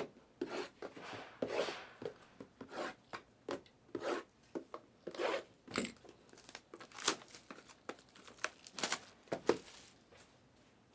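Trading-card packaging being torn open and crinkled by hand: a string of short, irregular tearing and crinkling noises.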